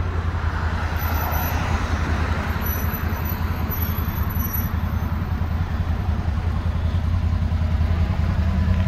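Can-Am Defender Limited side-by-side idling at a standstill, a steady low engine hum.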